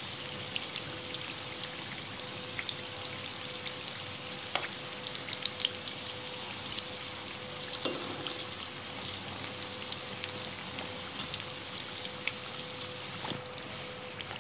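Samosas deep-frying in hot oil in a stainless steel pot: a steady sizzle thick with small crackles and pops. A few light knocks come from a slotted spoon turning them, and a faint steady hum runs underneath.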